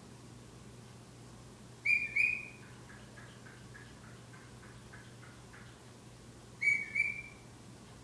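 Cockatiel whistling: two loud, short two-note whistles about five seconds apart, with a run of soft, quick repeated notes, about three a second, between them.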